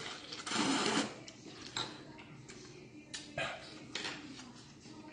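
A man slurping glass noodles out of a bowl of galbitang (beef short-rib soup): one loud slurp about half a second in, then wet chewing and smacking with a few short clicks.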